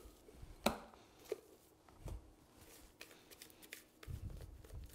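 Faint scraping and tapping of a spatula on a glass mixer bowl as whipped egg-white meringue is scraped out and drops onto melted chocolate, with a few scattered clicks and a soft low thud near the end.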